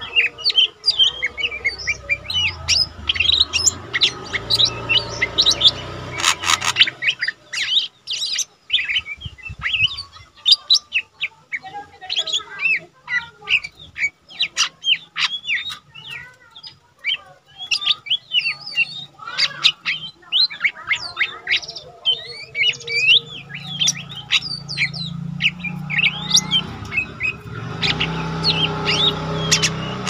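Lesser green leafbird (cucak ijo mini) singing a fast, busy stream of high, varied chirps and twitters, without pause.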